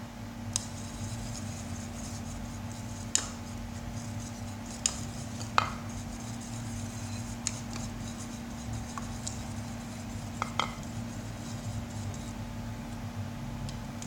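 A stirring utensil clinking and scraping against a bowl as a glue-and-mouthwash slime mixture is stirred: a handful of irregular sharp taps over a soft background.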